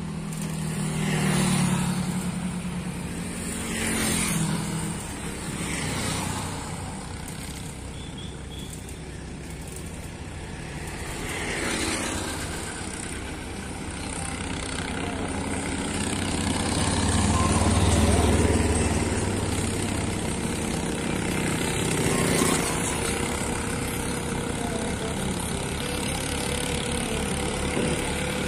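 Road traffic going by one vehicle after another, each swelling and fading, the loudest a deep engine drone about two-thirds of the way through. Toward the end a steady engine hum holds as a tractor pulling two sugarcane-laden trailers approaches.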